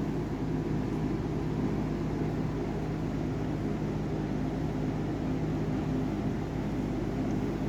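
A steady low hum with several held low tones and a hiss over it, unchanging throughout.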